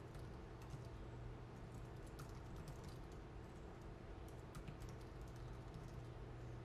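Typing on a thin computer keyboard: faint, irregular key clicks over a steady low hum.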